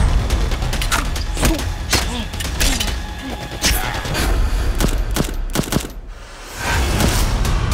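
Film action sequence: several sharp gunshots and fight blows over a dramatic score with a deep low drone. The score drops away about six seconds in, then swells again.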